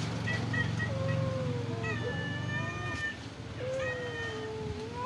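Domestic cats meowing, several long drawn-out meows that bend in pitch, with a few short high notes just after the start. A low hum underneath fades out about two seconds in.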